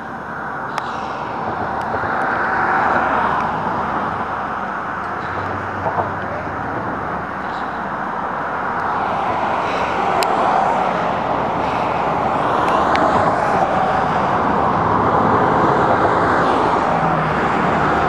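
Steady rushing noise of road traffic on the highway, gently rising and falling, with a few small clicks.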